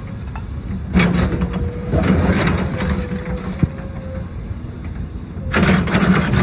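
Backhoe engine running steadily with a faint whine, while cinder blocks crunch and crash down in bursts about a second in, around two seconds in, and again near the end.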